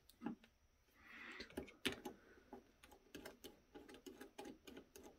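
Faint small clicks and ticks of parts and wires being handled and fitted inside the open metal chassis of a rack-mount power strip. They come in a quick run of about three a second in the second half, with a soft rush of noise about a second in.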